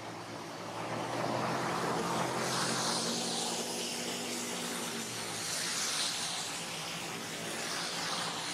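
A motor vehicle going by: a steady low engine hum under a rush of noise that swells after about two seconds, while the hum fades out a little past the middle.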